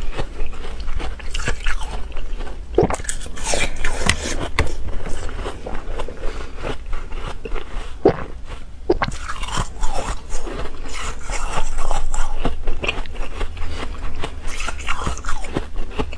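Close-miked biting and chewing of a chunk of hard ice: a steady crunching and crackling as it is ground between the teeth, with sharp, irregular cracks as pieces break.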